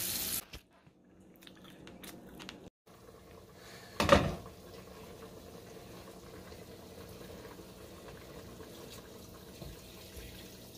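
Tap water running into a sink stops within the first half second. About four seconds in comes a short loud knock, followed by a low steady hiss, and near the end water is poured from a plastic cup into a metal cooking pot.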